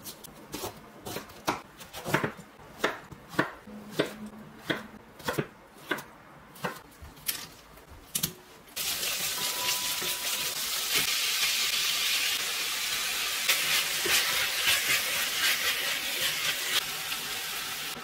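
Knife chopping on a cutting board in a steady rhythm of about two to three strokes a second. About nine seconds in, it gives way to a louder, steady sizzle of food frying in a hot pan.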